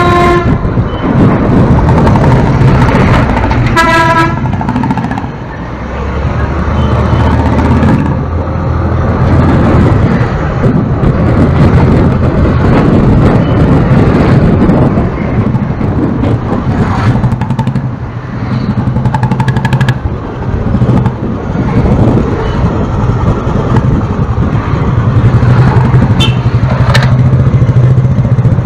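Steady motorbike engine and road rumble while riding in traffic. Vehicle horns honk several times: loud blasts right at the start and about four seconds in, and shorter, fainter toots later.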